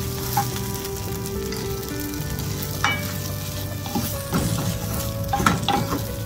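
Mini idlis being tossed in ghee and spice powder in a non-stick frying pan with a wooden spatula: a light sizzle, with the spatula scraping and knocking against the pan, the knocks coming more often in the second half.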